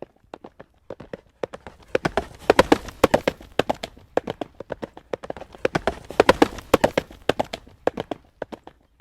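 Horse's hooves trotting on a hard road, a steady clip-clop of sharp strikes. It swells louder twice, about two seconds in and again about six seconds in, and is quieter in between.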